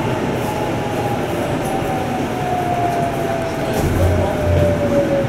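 Cabin running noise of a Sanyo 6000 series electric train slowing for a station stop: a steady rumble with the traction motors' whine falling slowly in pitch as it brakes. Two short low thumps come about four seconds in.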